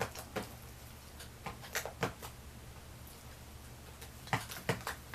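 Slime being handled: a scatter of short, sharp wet clicks and pops, a few at the start and a quicker cluster near the end.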